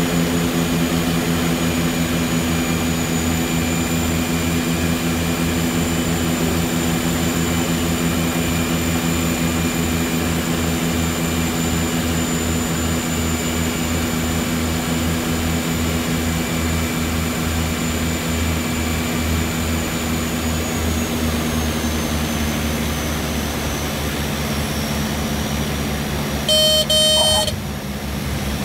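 A DHC-6-300 Twin Otter's two turboprop engines and propellers running steadily in the cockpit through the approach and landing, with a pulsing low hum; the pitch drops a little past the middle as power comes back. Near the end a loud horn-like tone sounds for about a second.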